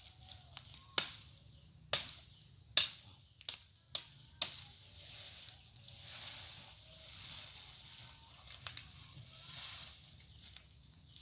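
Wood being chopped with a blade: six sharp strikes in quick succession in the first half. A faint, steady, high insect whine runs underneath.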